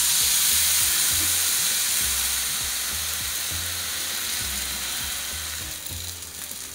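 Thin dhapate flatbread of millet-flour dough sizzling on a hot, lightly oiled tava, just turned onto it from a damp cloth. The sizzle is loudest at the start and slowly dies down.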